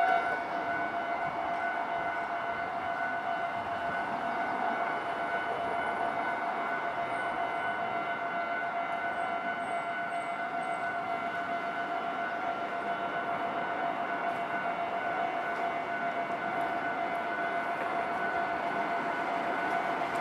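Japanese railway level-crossing warning bell ringing steadily, one repeated pitched clang with a steady rushing noise beneath it.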